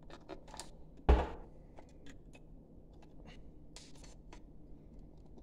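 Hands handling wires, plastic connectors and a metal mounting plate: scattered small clicks and taps, with one louder knock about a second in.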